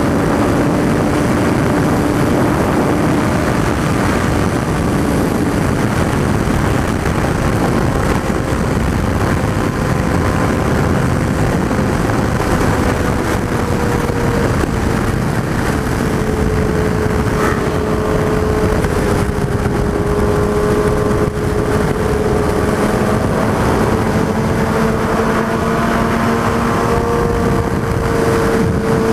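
Suzuki Hayabusa inline-four engine running at a steady highway cruise under heavy wind rush on the microphone; the engine note eases down slightly about halfway through and then holds steady.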